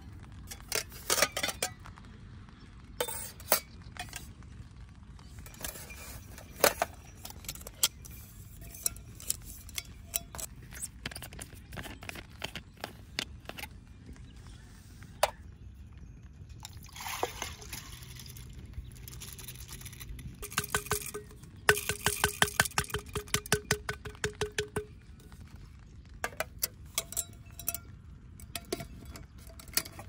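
Metal camping cookware clinking and tapping as rice is prepared in a cooker. Water is poured into it about halfway through, then comes a fast run of rattling clicks with a faint ringing tone.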